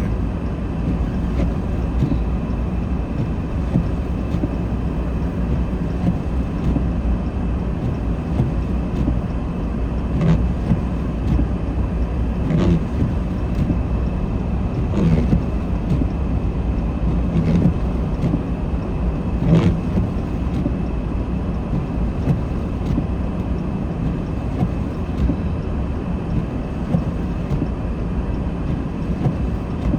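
Car driving slowly on a snow-covered road, heard from inside the cabin: a steady low rumble of engine and tyres, with a faint short knock every two to three seconds for a stretch in the middle.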